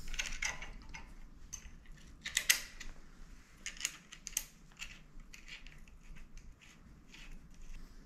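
Irregular light metallic clicks and small scrapes of a bicycle stem clamp bolt being fitted and threaded in by hand, with the handlebar clamp parts being handled; the sharpest click comes about two and a half seconds in.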